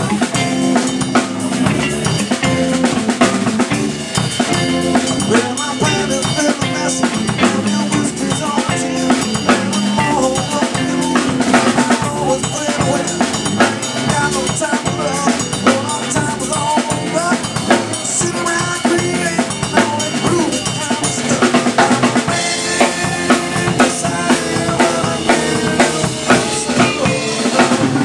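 Live rock band playing, with the drum kit loudest: kick drum, snare and cymbals keep a steady driving beat under the singer on microphone.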